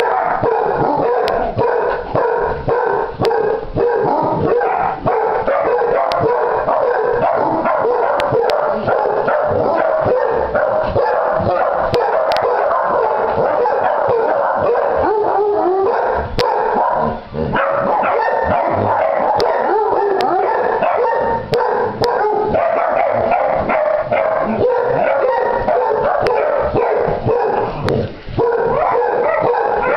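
Several hounds howling and barking at once in a loud, continuous din, dipping briefly about halfway through and again near the end.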